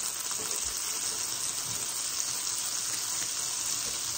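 Salted butter sizzling as it melts in a hot stainless steel wok: a steady hiss with a few faint crackles.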